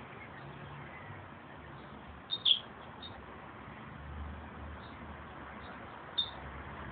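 Meadowlark giving short, high chirping notes: a sharp pair about two and a half seconds in, another near the end, and a few fainter ones between, over a steady outdoor hiss.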